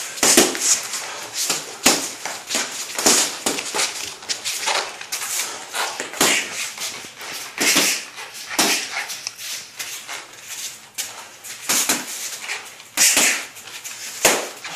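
Boxing gloves landing punches on a padded protective body-armor suit, an irregular run of sharp smacks and thuds in quick flurries, mixed with short hissing breaths.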